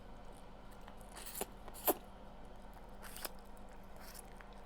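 Crab leg shells being cracked and broken open: a few short, sharp cracks and crunches, the loudest about two seconds in.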